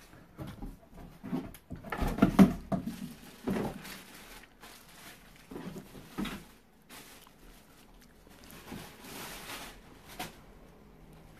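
Cardboard box and packaging handled by hand: irregular rustles, scrapes and knocks as the flaps are folded back and the pressure cooker is shifted in its cardboard packing, loudest about two seconds in.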